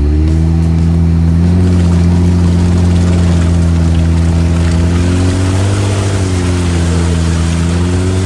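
Jeep Wrangler engine running hard under load as its mud-terrain tires spin through deep swamp mud, churning and splashing mud and water. The engine note holds steady, rising and falling slightly about six seconds in.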